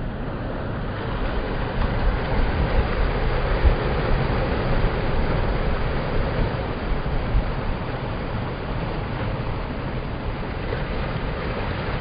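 Sea surf washing in over shoreline rocks, with wind rumbling on the microphone. The noise is steady, swelling a little a few seconds in.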